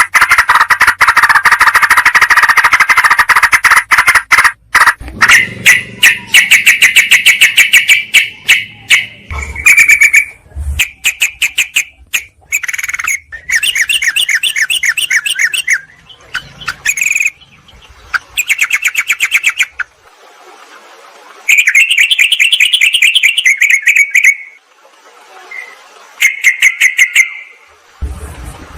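Yellow-vented bulbuls (trucukan) calling: bursts of fast, bubbly chirping separated by short pauses, with a dense stretch of chattering at the start.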